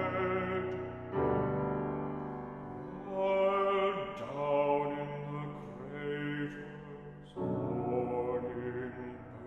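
Classical art song for baritone voice and piano: a baritone singing slowly over sustained piano chords, with new chords struck about a second in and again near the end.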